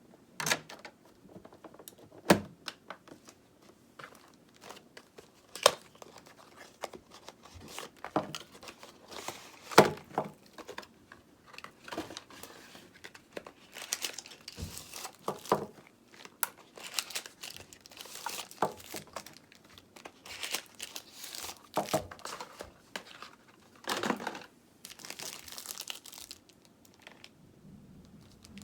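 Plastic packaging crinkling and rustling as it is handled by hand, with scattered sharp taps and knocks.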